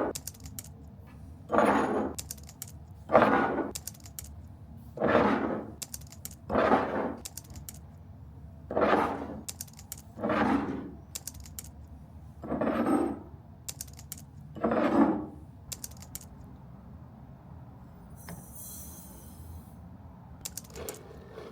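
Kitchen baking-prep handling: nine evenly spaced scraping strokes, about one every two seconds, with light clicks between them. The strokes stop a few seconds before the end, and a brief soft hiss follows.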